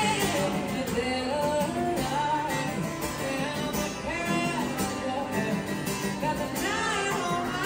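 A solo singer with a soulful voice sings live while accompanying themselves on an acoustic guitar, amplified through a small microphone-and-speaker setup. The sung melody glides and holds notes over steady guitar chords.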